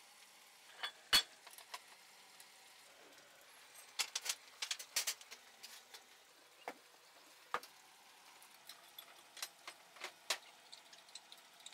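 Irregular sharp metallic clinks and knocks from steel ball-mould trays and plates being handled and set down. A loud knock comes about a second in, with a quick cluster of clinks around four to five seconds.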